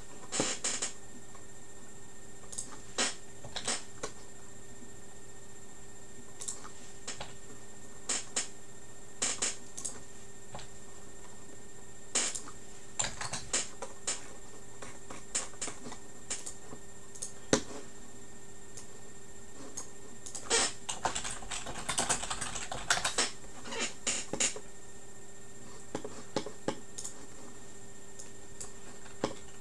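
Typing on a computer keyboard: short scattered runs of key clicks, busiest about two-thirds of the way through, over a steady faint electrical hum.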